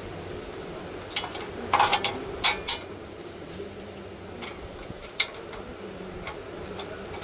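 Metal clinks and knocks of stand parts and tools being handled during assembly: a quick cluster of sharp strikes between about one and three seconds in, then a few single taps.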